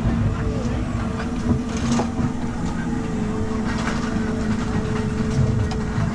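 Dino Jeeps ride car running along its guide rail: a steady motor hum with two held tones over the rumble and rattle of its wheels on the track.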